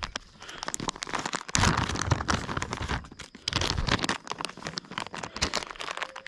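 Plastic packaging of soft-plastic jig trailers crinkling and rustling as it is handled and opened, in several spells of crackling.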